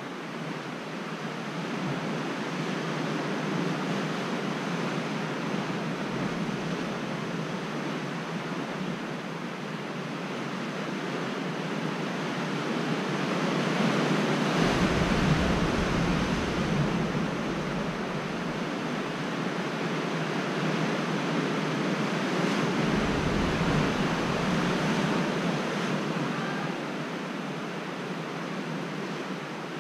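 Rushing of sea surf against the coastal lava cliffs, a steady wash that swells and fades. Wind buffets the microphone in two low rumbles, about halfway through and again near the end.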